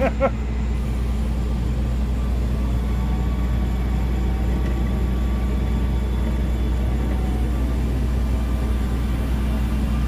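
Tow truck's engine running steadily, a low constant rumble with a faint hum over it.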